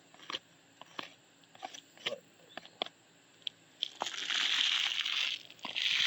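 Roof shingles being handled: a few sharp cracks and crackles, then two longer gritty scrapes about four and six seconds in.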